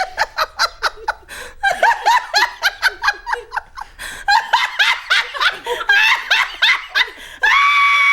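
Person laughing hard in quick repeated high-pitched bursts, each falling in pitch, breaking into a long held squealing note near the end.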